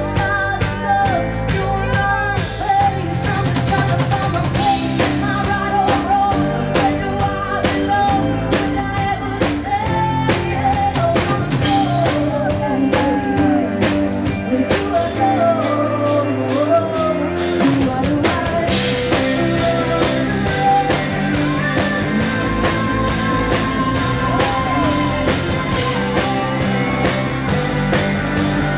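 Live rock band playing, with a woman's lead vocal over guitar, bass and a drum kit keeping a steady beat. About two-thirds of the way through, crashing cymbals come in and the band plays fuller.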